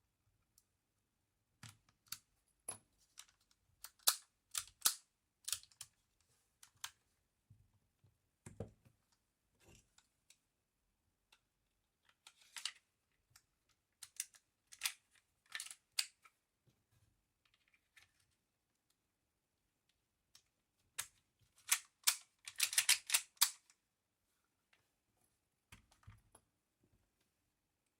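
Sharp metallic clicks and snaps from handling a Tokyo Marui V10 Ultra Compact airsoft 1911 pistol, its slide and hammer parts clacking in irregular clusters, with a quick flurry of clicks near the end.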